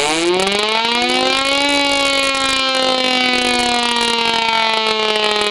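Chopper rotor and motor assembly of a Thunderbolt 1000A civil defense siren, run on its own out of the siren, making a siren-like wail. The pitch rises as the motor spins up, levels off after about a second and a half, then sags slowly.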